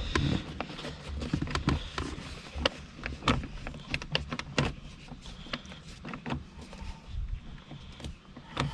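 Irregular clicks, taps and rustling of hands working a replacement shift boot down over its mounting points on the console trim.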